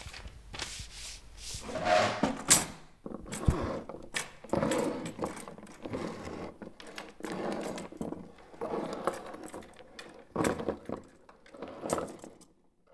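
Irregular scraping, rubbing and clinking of small objects handled on a wooden desk, with sharp clicks and scratchy rustles coming in uneven bursts.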